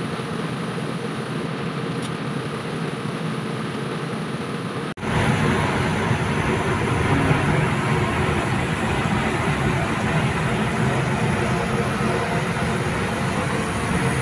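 Steady machine noise of a commercial kitchen's ventilation. It breaks off sharply about five seconds in and comes back as a louder, fuller steady rush. Near the end a tap is running into a stainless steel sink.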